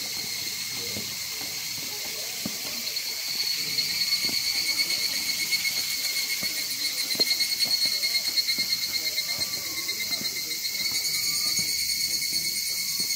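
A chorus of insects shrilling steadily at several high pitches with a fine pulsing texture, growing louder a few seconds in.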